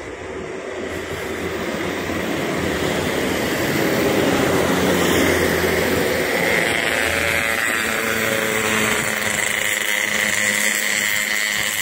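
A motor running steadily, growing louder over the first few seconds and then holding level.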